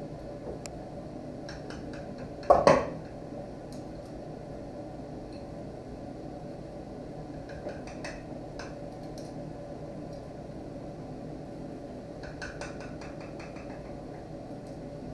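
Knife and fork clinking against plates as slices of pork tenderloin are served, with light scattered clicks and one loud clatter about two and a half seconds in, over a steady background hum.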